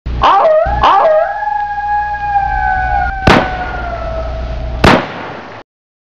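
Two short yelps, then one long dog-like howl that falls slowly in pitch, with two sharp clicks partway through.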